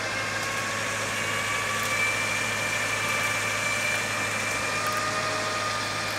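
Diesel 4x4 engine idling steadily, with a faint steady higher-pitched tone above the hum.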